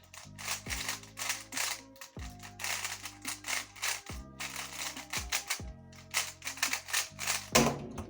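Rapid clacking of a GAN 13 MagLev magnetic 3x3 speedcube being turned fast during a solve, with a louder clack near the end, over background music.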